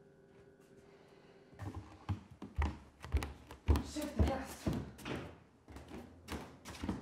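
Footsteps thudding on a wooden floor, roughly two a second, starting about a second and a half in after a quiet stretch.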